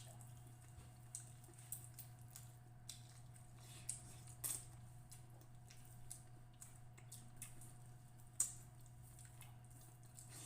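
Faint eating sounds: scattered small clicks and smacks of chewing, over a steady low hum. One sharper click comes about eight seconds in.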